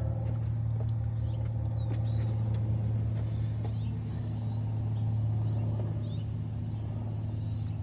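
Steady low hum of a running motor or engine, even in pitch, with a few faint bird chirps above it.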